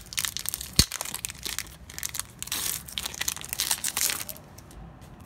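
Foil trading-card booster-pack wrapper crinkling and crushing in the hands, with one sharp knock about a second in; the crinkling dies down shortly before the end.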